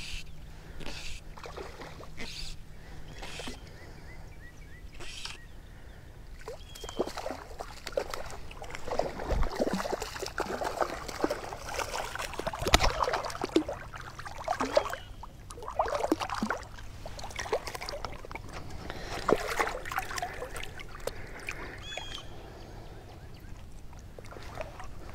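A hooked trout splashing and thrashing at the water's surface while it is fought on a fly rod, the water sloshing in irregular bursts. It opens with a run of short, regular swishes.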